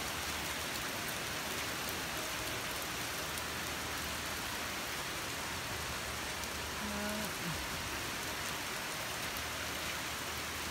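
Hard rain falling steadily, an even hiss of rain on the ground.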